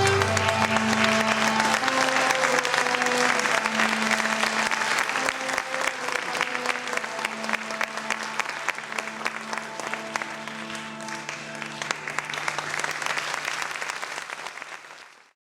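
Audience applauding over music playing a melody. Both fade and then cut off near the end.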